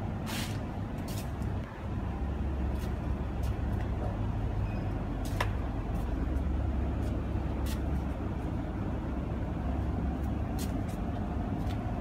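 Engine running at a steady idle with a low rumble, while short hissing bursts come at irregular intervals.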